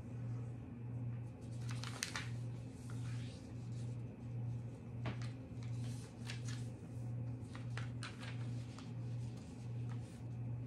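Origami paper being folded and creased by hand: soft rustles with sharper crinkles about two, five, six and a half, and eight seconds in. Under them runs a low hum that swells and fades about once every three-quarters of a second.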